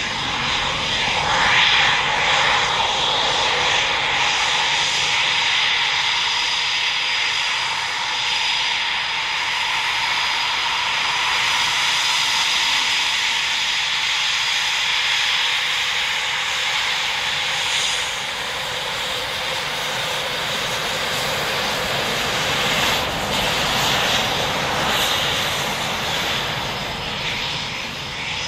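Eurofighter Typhoon's twin EJ200 turbofans running at low taxi power: a steady high-pitched jet whine over a continuous rushing noise.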